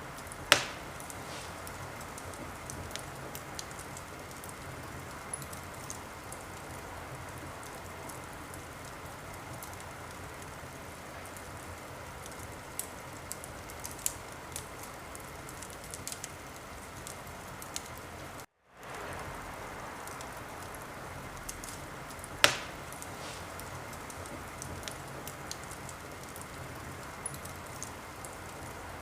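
Wood fire in a fireplace crackling over a steady hiss, with scattered small snaps and two loud pops, one about half a second in and one about twenty-two seconds in. The sound drops out completely for a moment about eighteen and a half seconds in.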